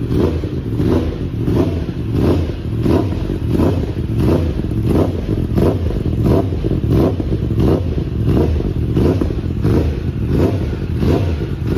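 Yamaha R1M superbike's crossplane inline-four engine revved through its exhaust in quick repeated throttle blips, about two surges a second.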